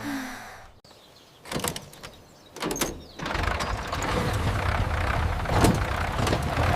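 A couple of mechanical clunks, then the combine harvester's engine starts and runs steadily from about halfway in, a test run after a wheat clog has been cleared from it.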